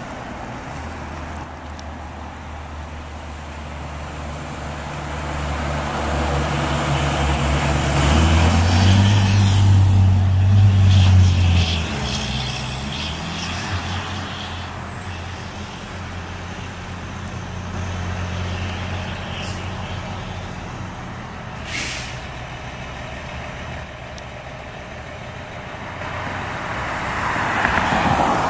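Heavy fire trucks' diesel engines running as the apparatus pull through. The engine is loudest and climbs in pitch for a few seconds about a third of the way in, then settles. A short, sharp air-brake hiss comes later, and a loud rushing swell follows near the end.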